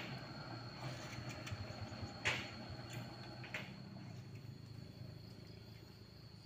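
Truck diesel engine idling low and steady, with a few sharp knocks over it, the loudest about two seconds in.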